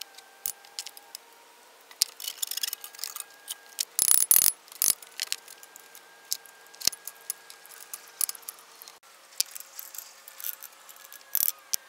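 Metal clinks, knocks and clattering of tools and parts as an engine generator (Shindaiwa EG16) is dismantled by hand, with a loud burst of clattering about four seconds in.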